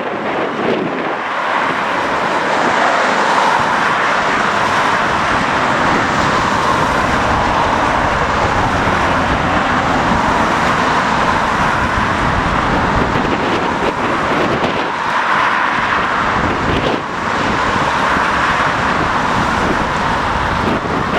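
Strong wind buffeting the microphone in gusts, over a steady rushing roar.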